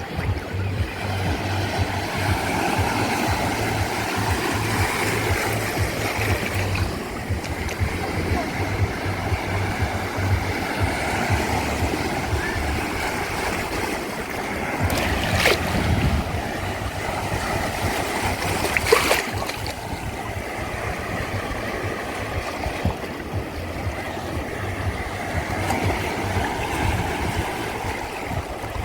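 Sea waves washing steadily onto the shore, with a low rumble underneath. Two sharp clicks stand out about halfway through.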